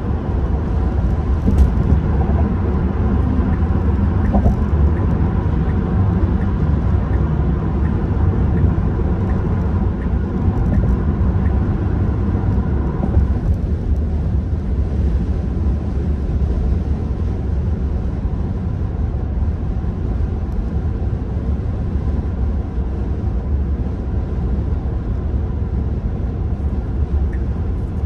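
Tyre and road noise heard inside a Tesla Model 3 Performance's cabin at about 65 mph on the freeway: a steady low rumble with no engine sound. About halfway through it turns a little duller.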